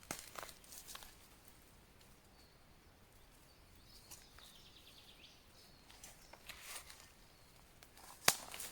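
Quiet woodland sounds: scattered light rustles and clicks, a short descending bird trill about halfway through, and one sharp snap near the end.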